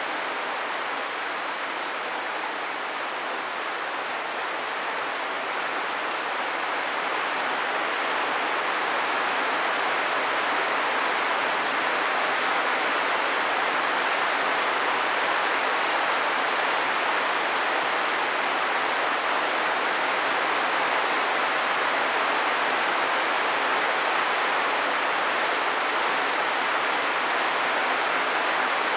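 Steady rain falling, an even hiss that grows a little louder about eight seconds in and then holds.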